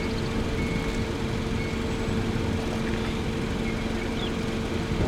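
Steady engine hum and road noise heard from inside a vehicle.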